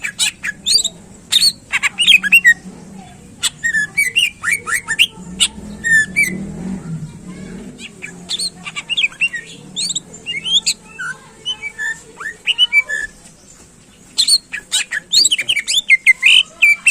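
A cucak ijo (green leafbird) singing hard, in fast runs of sharp whistled and chattering notes that break off and start again. The song eases briefly around the middle and picks up busily again near the end, over a faint low hum.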